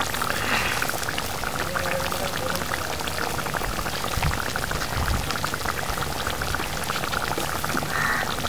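Thick fish curry simmering in a steel kadai, its bubbles popping in a steady crackling patter. A steel ladle stirs through it about midway.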